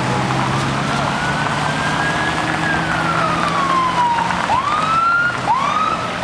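Ambulance siren in a slow rising-and-falling wail, switching about four seconds in to short rising whoops about once a second. A vehicle engine's steady hum runs underneath until the switch.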